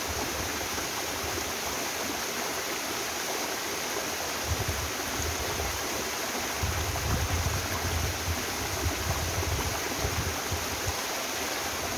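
Steady rush of a mountain waterfall and the stream below it. Irregular low rumbles come and go about halfway through.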